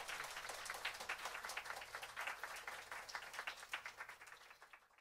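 Small audience applauding: a fairly faint patter of scattered hand claps that thins out and fades away near the end.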